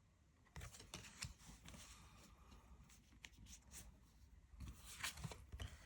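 Faint rustling and light clicks of oracle cards being slid off the deck and turned over by hand, starting about half a second in, with a few sharper taps near the end.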